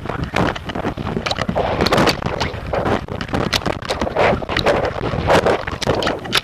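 Wind buffeting the microphone of an action camera carried aloft on a kite, an irregular gusty rush broken by many sharp knocks and flaps as the shaky kite mount swings.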